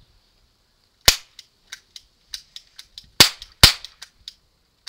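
Toy cap-gun revolver firing ring caps: three sharp, loud bangs, one about a second in and two close together a little after three seconds, with fainter clicks between them.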